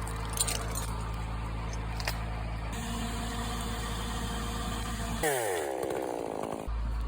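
Crane engine running steadily under load during a heavy lift, with a few faint clicks. Near the end the engine hum drops out for about a second and a half, replaced by a brief gliding, shifting tone.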